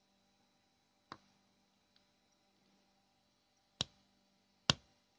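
Sharp clicks of small plastic parts, three distinct ones with the last the loudest, as a thin plastic shim is worked in between a 3D-printed hook and the worm gear of a blind tilt mechanism.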